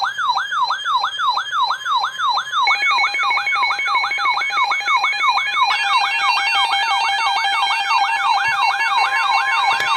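Weather alert radio receivers sounding their warning alarm: a siren-like tone falling in pitch over and over, about three times a second, joined about three seconds in by a fast pulsing beep and later by more alarm tones layered on top. The alarm signals an incoming severe weather warning.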